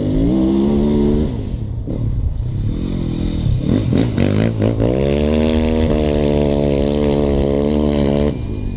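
Trials sidecar outfit's motorcycle engine revving hard as its rear wheel spins in loose dirt. The revs climb briefly at first and ease off about a second in, then rise again and are held high for several seconds before backing off sharply near the end.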